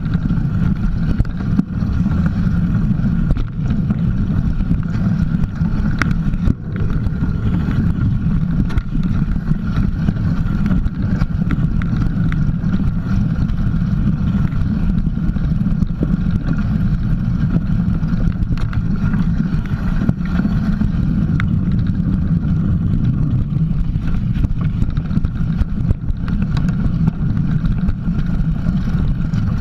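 Steady rumble of a mountain bike riding over a rough trail, picked up by a camera mounted on the bike, with wind buffeting the microphone and a few faint clicks and knocks.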